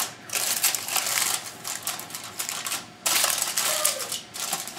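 Aluminium foil crinkling and crackling as hands crimp it down around the rim of a baking dish, in a few bursts with brief pauses between.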